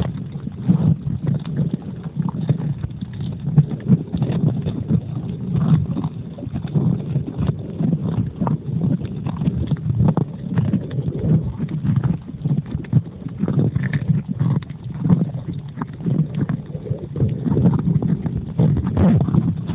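Muffled underwater sound picked up by a phone sealed in a waterproof pouch: a steady low rumble of moving water with frequent irregular soft crackles and knocks.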